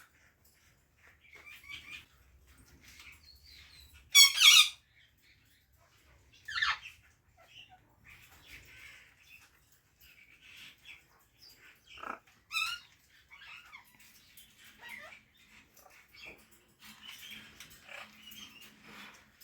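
Parrot calling: one loud, harsh squawk about four seconds in, sharp shorter calls near seven and thirteen seconds, and softer chirps and chatter in between.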